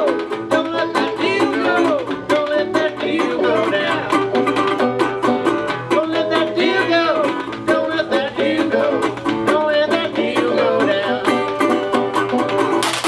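Live string-band music: banjo and resonator guitar playing over a steady washboard rhythm, with some gliding notes.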